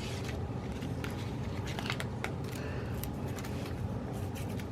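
Faint scattered clicks and rustles of paper stickers and planner pages being handled, over a steady low room hum.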